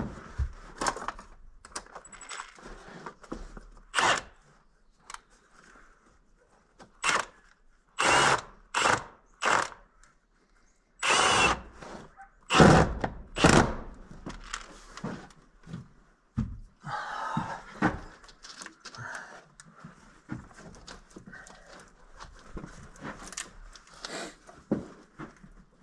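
A handheld power tool run in a series of short bursts, most of them clustered around the middle, with clinks and knocks of metal tools and parts in between.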